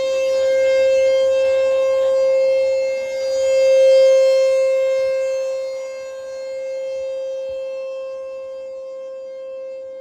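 American Signal Corporation Tempest T-128 rotating outdoor warning siren sounding one steady tone, its loudness rising and falling as it turns, loudest about four seconds in.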